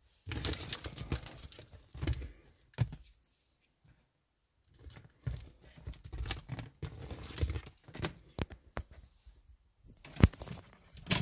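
Close rustling, crinkling and sharp clicks of hands handling wires and plastic right at the phone's microphone, irregular, with a pause of about two seconds in the middle.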